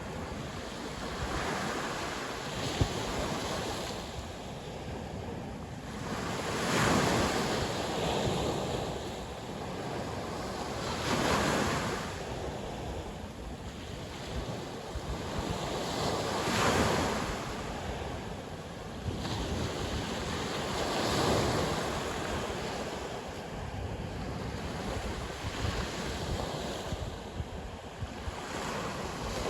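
Sea waves breaking and washing on the shore, a surge every four to five seconds over a steady wash of surf, with wind buffeting the microphone.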